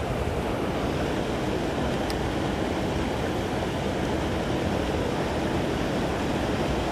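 Steady rush of water pouring over a low spillway weir into the channel below.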